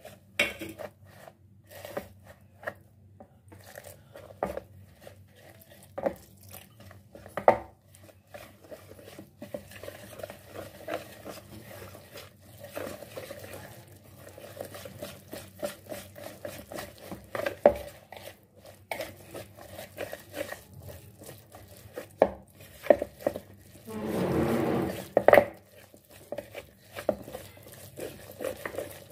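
Wire whisk stirring gram flour, spices and a little water into a thick batter in a plastic bowl, scraping steadily, with irregular sharp clicks of the whisk against the bowl. There is a louder stretch of scraping near the end.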